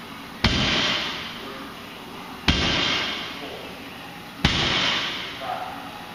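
A loaded barbell with bumper plates set down on the floor at each deadlift rep: three sharp hits about two seconds apart, each trailing off over about a second of rattle and echo.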